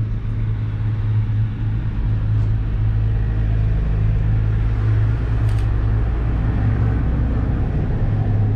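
Steady low rumble and hum of a gondola cabin travelling along the cable-car line, with a brief faint click about five and a half seconds in.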